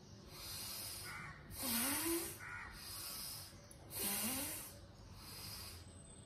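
A woman breathing deeply and audibly in time with an elbow-bending exercise, about five breaths a second or so apart. The two loudest, around two and four seconds in, are forceful exhales with a short hum rising in pitch.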